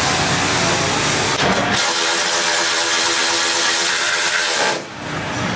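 A steady hiss, then a hand-held power drill's motor whining at an even pitch for about three seconds before it stops.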